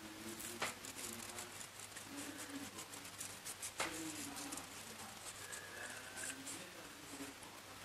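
Fish food flakes being shaken out of a container over an aquarium: a light, irregular patter of small ticks and taps, with two sharper clicks about half a second in and just before the four-second mark.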